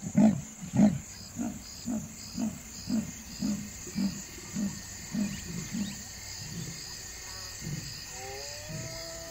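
Leopard's sawing call: a series of rasping grunts about two a second, loudest at first, then weakening and quickening slightly until they die out about six seconds in. It is a female calling for mates while courting. Insects chirp steadily underneath, and wavering whistle-like calls that rise and fall start near the end.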